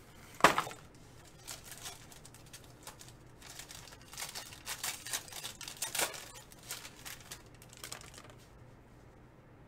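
Foil trading-card pack being torn open, with a sharp rip about half a second in, then bursts of wrapper crinkling that die away near the end.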